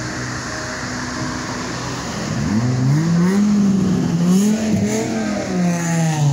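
Road traffic: a steady rush of tyres and wind, and from about two and a half seconds in a vehicle's engine note that rises, wavers and then drops as it goes by.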